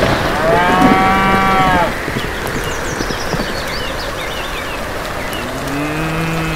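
Cattle mooing twice over steady rain: a higher-pitched moo about half a second in that lasts over a second, then a lower, deeper moo near the end.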